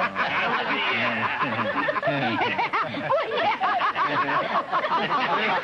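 Several people laughing together in overlapping giggles and chuckles, with a woman's laughter prominent.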